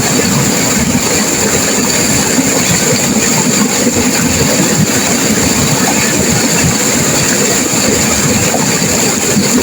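Turbulent river water rushing and crashing over rapids, loud and steady without a break.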